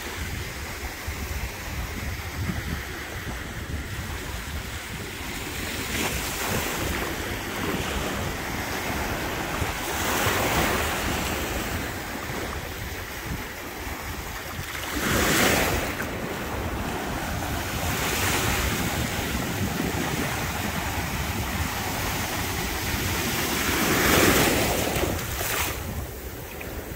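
Small waves breaking and washing up a shallow sandy shoreline, the surf swelling in several surges, the loudest about halfway through. Wind buffets the microphone with a steady low rumble.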